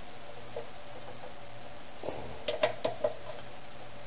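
A quarter-inch drive ratchet clicking, about four quick clicks between two and three seconds in, as the ignition coil's mounting screws are tightened.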